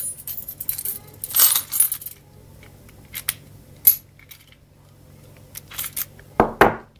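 Metal keys jangling and clicking as they are handled: a busy jingle for the first two seconds, scattered single clicks, then a louder clatter near the end.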